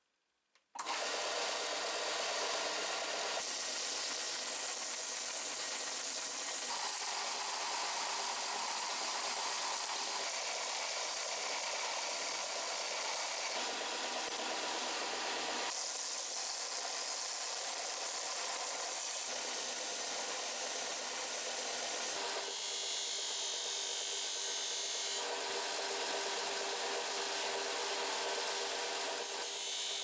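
Scheppach combination belt and disc sander switched on about a second in, then running steadily while small metal parts of an axe multi-tool are ground against the belt and the disc. The grinding changes in tone every few seconds as the work piece and pressure change.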